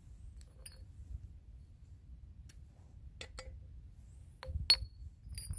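Light clicks and clinks as the shovel kit's black handle tubes are handled and one is picked up off the stone slab. There are two light clicks a little past three seconds in, then a sharper clink near the end.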